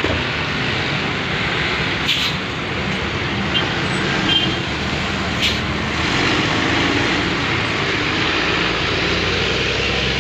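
Steady road traffic noise, with a few short clicks.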